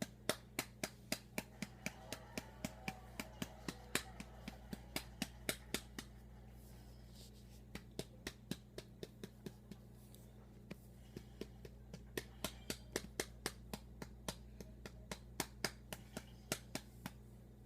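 Quick, sharp pats of a hand on a baby doll's back to burp it, about three to four a second, thinning out in the middle and picking up again. A steady low electrical hum runs underneath.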